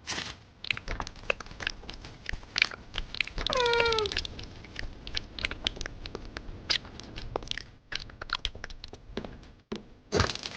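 Cartoon sound effects: a busy run of short clicks and taps, with one squeaky, falling cry like a meow about three and a half seconds in.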